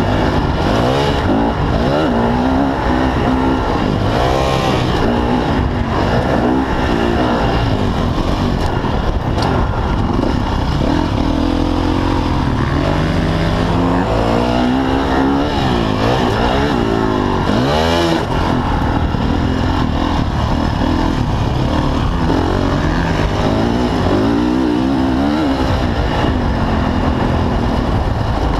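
Motocross dirt bike engine heard from on the bike, revving up and dropping back over and over as the rider accelerates, shifts and rolls off around the track.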